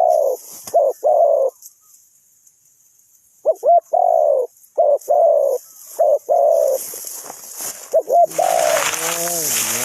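Spotted dove cooing: about five repeated phrases, each two short notes followed by a longer coo, with a pause of about two seconds between the second and third. Near the end a lower, rougher voice-like sound comes in over the last phrase.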